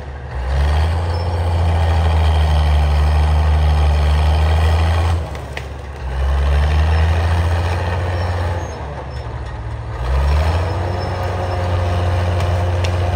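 Caterpillar D5 crawler dozer's diesel engine working under load as it pushes brush and trees with its blade. The engine note drops away twice, at about five and nine seconds in, and comes back with a rising rev about ten seconds in.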